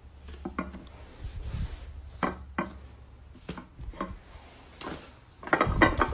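Thick clay-like slime being pressed with a metal ball-tipped stylus, giving short, irregular pops about once a second. Near the end a hand squishes it in a louder, dense run of crackling pops.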